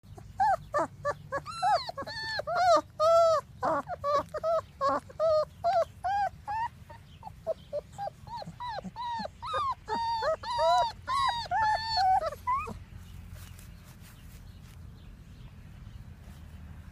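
Three-week-old German Shepherd puppies whimpering in a rapid run of short, high, arching whines, which stop about three quarters of the way through.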